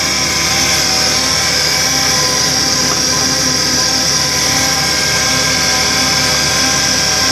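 Pneumatic air motor of a line boring machine running steadily, turning and feeding the boring bar through an engine's main bearing bores. A steady hiss of exhausting air sits over a steady whine made of several fixed tones.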